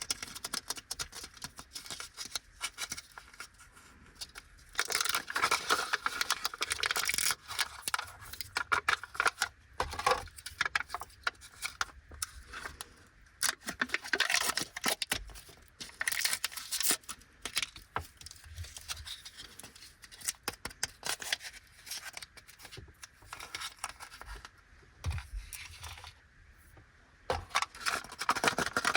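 Yaokin Toys Egg being opened by hand: its plastic wrapper crinkles and tears in bursts, mixed with sharp clicks and rattles of small plastic parts. The sound pauses briefly a few times.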